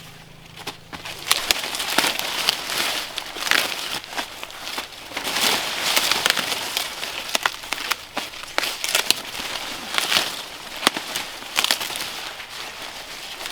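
Dry plant material rustling and crackling as it is handled, with many irregular sharp snaps and crinkles.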